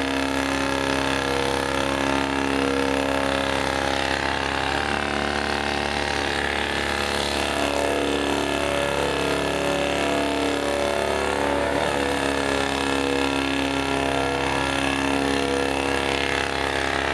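Airnesco barrel cleaning system's motor-driven rotary brush running as it scrubs the tubes of an M260 70 mm rocket launcher: a steady motor hum whose pitch shifts about five seconds in and wavers through the middle.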